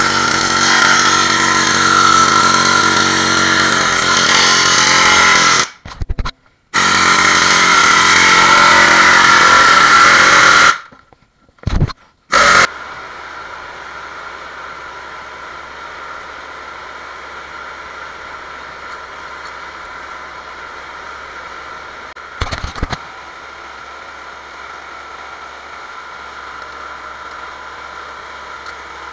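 Pneumatic air chisel hammering on sheet steel in two long, loud bursts. After a few short blips, a quieter steady mechanical running noise with a low hum carries on and cuts off suddenly near the end.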